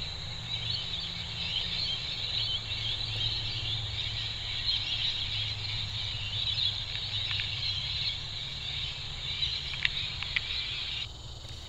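A flock of birds chattering: a dense, continuous mass of high chirps over a steady low hum, cutting off abruptly near the end.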